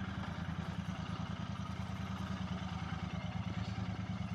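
Royal Enfield Bear 650's 648 cc parallel-twin engine idling steadily through its stock exhaust.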